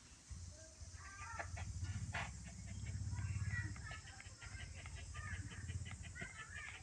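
Puppy growling low and steadily while it chews a plush toy, loudest about three seconds in, with chickens clucking and chirping in the background.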